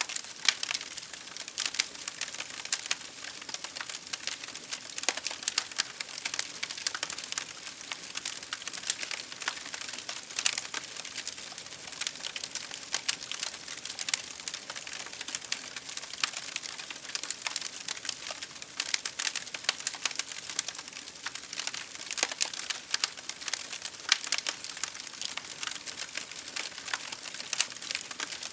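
Fireplace fire crackling steadily: a dense, irregular run of small sharp pops and snaps over a soft hiss.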